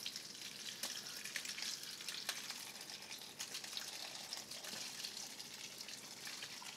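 Cooking juices from a pot roast pouring out of a tilted slow cooker crock into a pot below: a steady splashing trickle with many small drips and clicks.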